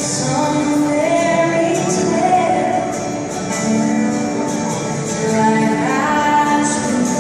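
Southern gospel trio of two women and a man singing with accompaniment, amplified in a large hall; sustained, gliding vocal notes.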